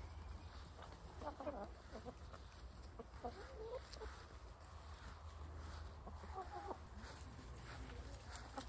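Brown hens clucking in short, scattered calls, quiet overall, over a low steady rumble.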